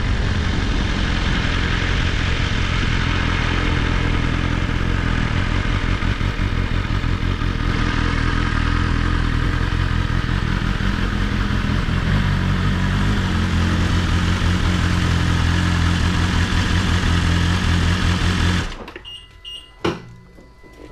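BMW S1000RR inline-four engine running steadily while riding at about 25 mph, with wind noise, carrying the buzzing noise that the rider cannot explain and that appears around that speed. Near the end the engine and wind sound cut off suddenly, leaving a few faint knocks.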